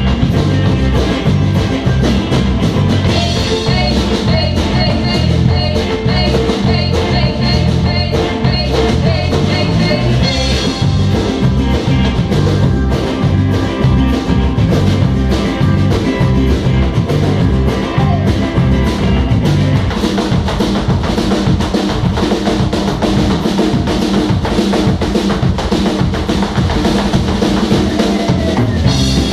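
Live band playing Mexican music: a drum kit keeps a steady beat under electric bass and strummed guitars.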